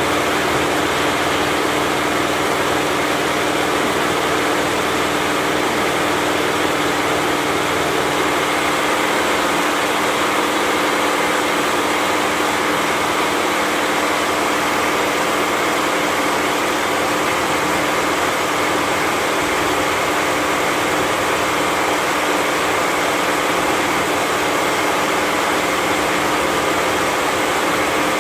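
Richpeace 20-head flat embroidery machine stitching at 1200 RPM, all heads running together in a steady, even mechanical clatter and hum.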